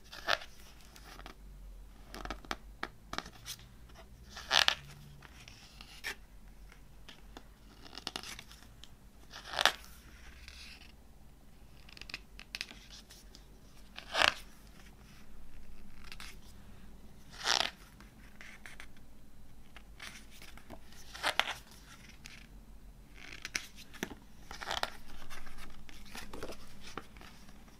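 Glossy pages of a CD photo booklet being turned by hand. About seven short, sharp page flicks come a few seconds apart, with softer paper rustling and small clicks between them.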